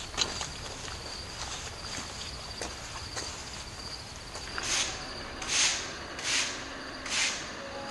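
Crickets chirping steadily in the first half. After that come about four footsteps of boots scuffing on rough, gritty ground, some 0.7 s apart.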